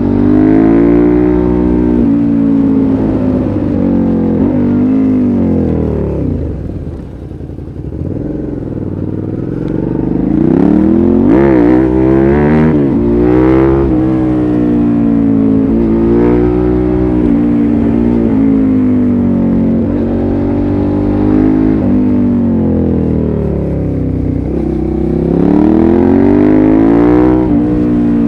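2005 Suzuki SV650S's V-twin through a LeoVince exhaust with dB-killer, pulling hard and easing off as the bike is ridden. The pitch climbs and falls again and again, drops low and quieter about a quarter of the way in, then swings up and down quickly several times before settling into steadier pulls.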